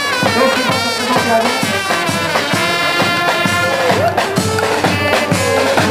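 Peña brass band playing a lively tune: trumpets and trombones carry the melody over a regular drum beat.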